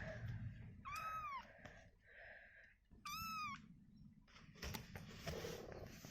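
A young kitten mewing twice, two short high-pitched calls that rise and fall, about two seconds apart. It is calling while apart from its mother, cold.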